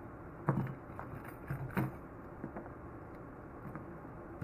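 Keys, a pocket knife and other small pocket items being handled and set down on a rubber bench mat: a few light clacks and knocks, the clearest about half a second in and just under two seconds in.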